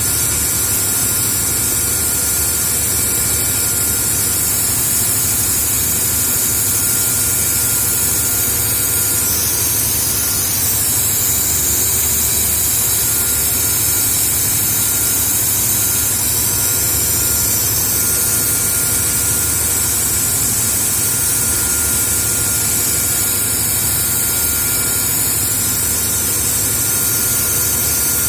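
A cleaning jet hissing steadily into an air compressor's oil cooler, over a steady low machine hum. The hiss shifts in pitch a couple of times as the jet moves.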